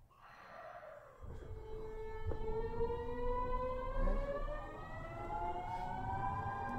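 Kyoto Municipal Subway 50 series train accelerating away from a station: the VVVF inverter and traction motors whine in several tones that dip in pitch at first, then rise steadily as the train gathers speed, over a growing low rumble from the wheels.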